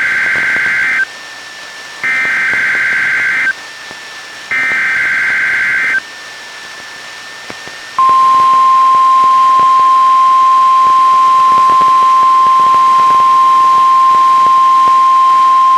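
NOAA Weather Radio Required Weekly Test coming through a Reecom R-1630 weather radio. It opens with three buzzy SAME digital header data bursts, each about a second and a half long with a second between them. About eight seconds in, the steady single-pitch 1050 Hz warning alarm tone starts.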